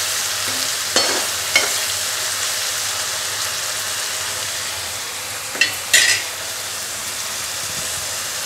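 Mint leaves, sliced onion and green chillies sizzling steadily in hot oil on a medium flame, with a few short knocks and scrapes of a spatula against the pan, a pair about a second in and another pair about six seconds in.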